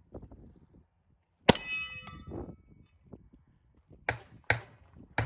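Pistol shots on a stage of steel targets: one shot about a second and a half in, with a steel plate ringing clearly after it, then three quicker shots near the end. The shots come from a compensated Sig Sauer P320.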